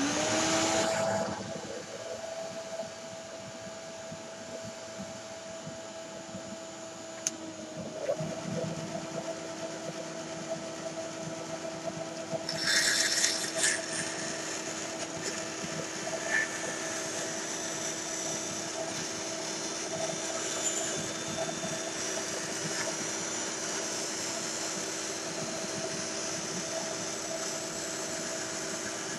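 A 10-inch Craftsman benchtop band saw is switched on and its motor comes up to speed within a second, then runs with a steady hum. About halfway through, a harsher, hissy rasp rises for a second or two as the blade cuts into a board, and the saw keeps running with a hissier edge after that.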